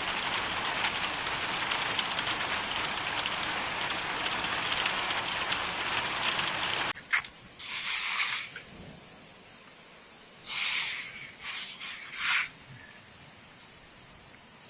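Hail and heavy rain pelting down in a dense, steady patter of impacts that cuts off suddenly about seven seconds in. After the cut the sound is much quieter, with a few short rushing noises.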